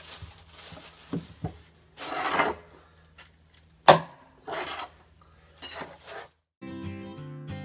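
A long metal bar knocking and scraping against the boat's floor and the water tank's fittings: a few sharp clicks, bursts of scraping, and one loud sharp clank about four seconds in. Acoustic guitar music comes in near the end.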